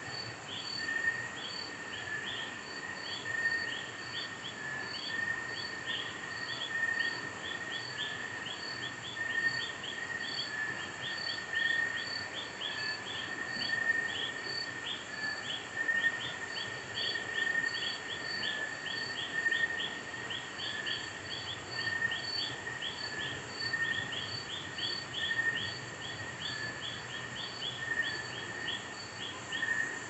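Night-time tropical jungle chorus of insects: a steady high wavering drone, several short chirps a second above it, and an evenly spaced pulsing note higher still, all layered together without pause.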